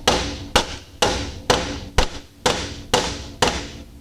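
Hammer striking the pivot joint of a steel window regulator arm laid on a vise, eight blows about two a second, each with a short metallic ring. It is peening tight a pivot that had worked loose and hogged out from stress.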